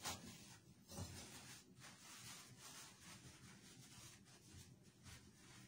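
Faint rubbing of a cleaning cloth wiped over bathroom fixtures, with two soft knocks about a second apart near the start.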